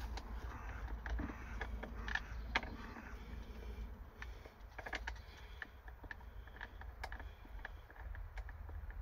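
Irregular small metallic clicks and light knocks as a seat-belt anchor bolt, nut and spacer are worked into place by hand, over a steady low rumble.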